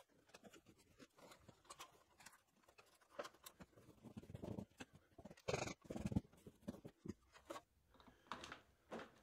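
Faint handling sounds of fitting a sheet-metal LED light fixture and an acoustic ceiling tile into a T-bar drop-ceiling grid: scattered light knocks, rustles and brief scrapes, busiest about halfway through.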